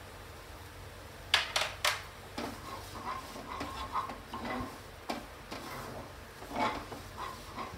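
A spatula stirring and scraping a thick, drying barfi mixture around a non-stick frying pan, with three quick sharp taps against the pan about a second and a half in and more scrapes and knocks after.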